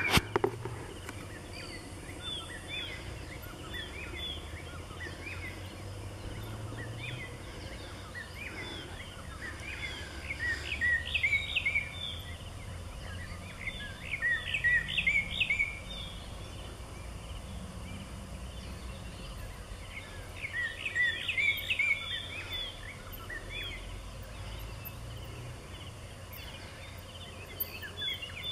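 Animal calls: short chirps repeating throughout over a steady low hum, with three louder bursts of rapid calls, about ten, fourteen and twenty seconds in.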